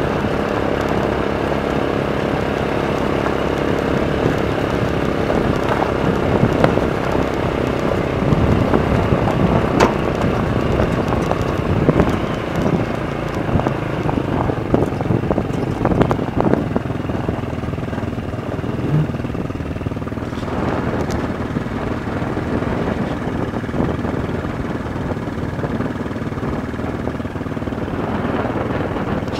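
Go-kart engine running steadily, with knocks and rattles from riding over rough ground through the middle, then running more evenly and a little quieter in the second half.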